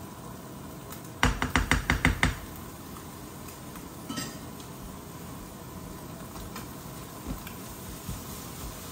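A serving spoon rapped against a frying pan about eight times in quick succession, knocking cottage cheese off into the pan, about a second in. A single fainter clink follows a few seconds later.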